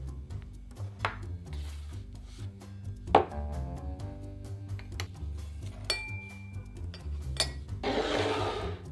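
Background music with a steady bass beat, over about four sharp kitchen clinks as small metal cups, a spice jar and a measuring spoon are handled on a wooden counter; the loudest, about three seconds in, rings on briefly. Near the end, a short rubbing scrape as a bowl is slid across the wooden counter.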